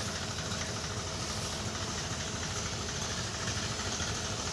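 Tractor engine running steadily at idle, driving the pump that feeds the hose sprayers.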